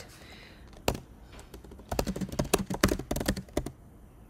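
Computer keyboard typing: a single keystroke about a second in, then a quick run of keystrokes lasting a little under two seconds as a short terminal command is typed.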